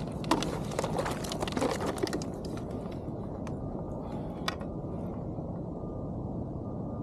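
Rustling and clattering as a rainbow trout is handled in a rubber landing net on a kayak, in a burst over the first two seconds with one more sharp click about four and a half seconds in, over a steady low background noise.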